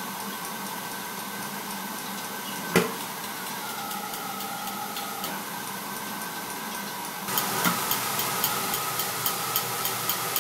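Steady hiss of air and gas flowing through a lab burner with a small flame lit, under a regular electric spark igniter ticking. There is one sharp loud click about three seconds in. From about seven seconds in the hiss is louder and the igniter ticks stand out at about two a second.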